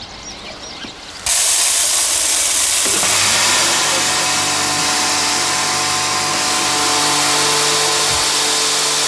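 Electric grain mill grinding rye: it starts abruptly about a second in and runs loud and steady, with a steady hum under the grinding noise.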